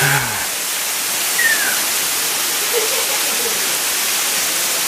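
Waterfall: falling water rushing as a steady, even hiss.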